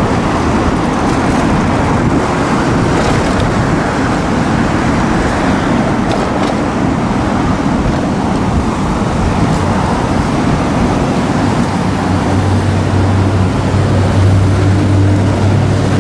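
Steady road traffic noise, with a vehicle engine's low, steady hum joining about three-quarters of the way through and becoming the loudest sound.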